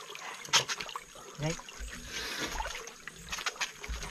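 Shallow rocky stream water trickling and splashing as people wade through it in slippers. There is a sharp knock about half a second in, a brief voice sound about a second and a half in, and a few more knocks near the end.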